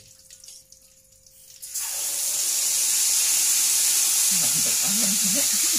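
Wet ground chili-and-tomato sambal hitting hot oil in a wok: a sudden loud sizzle about two seconds in that stays steady as it fries.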